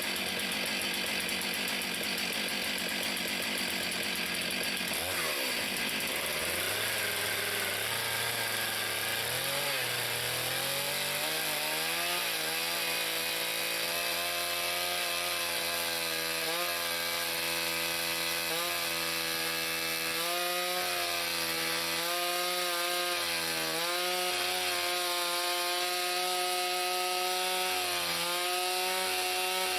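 Chainsaw on a chainsaw mill, running steadily under load as it rips along a log. The engine's pitch settles in the first several seconds, then holds with small dips as the cut bogs it slightly.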